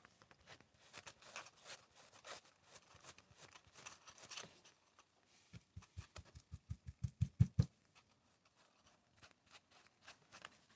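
Paintbrush stroking and scratching over papier-mâché in short, quick strokes while a first coat of paint goes on. About halfway through, a quick run of soft, low thumps builds up for about two seconds.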